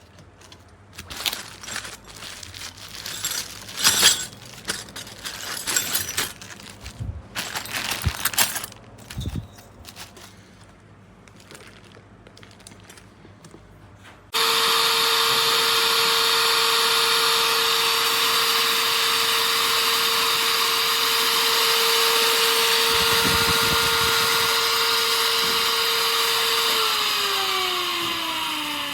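Irregular clattering and knocking of parts being handled, then a high-speed electric grain mill's motor switches on abruptly and runs with a steady high whine. Near the end it is switched off and its pitch falls as the blades spin down.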